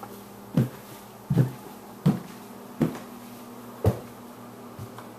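Footsteps climbing carpeted stairs: five heavy thumping steps about two-thirds of a second apart, then a lighter step near the end.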